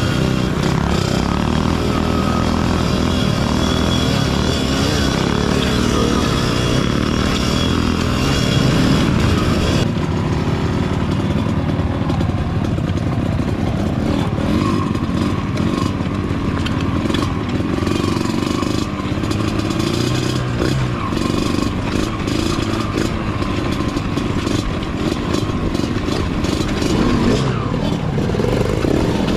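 Dirt bike engines running at low speed along a rough trail, with clattering knocks from the bikes over the bumpy ground.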